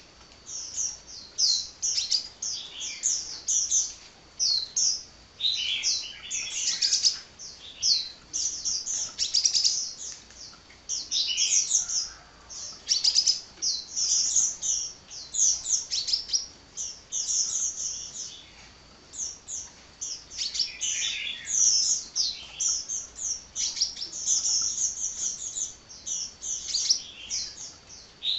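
Sunbird singing non-stop: rapid runs of high, thin chirps and short downward-sweeping notes, with brief pauses between runs.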